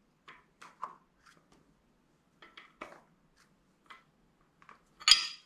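Light metal clicks and taps at irregular intervals from handling a cam bearing installer tool with a new cam bearing snugged onto its expanding collet, with one sharper, slightly ringing click near the end.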